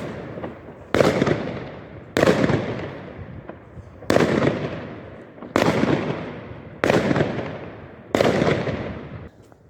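Fireworks going off one after another: six loud bangs every one to two seconds, each trailing off in a long echo.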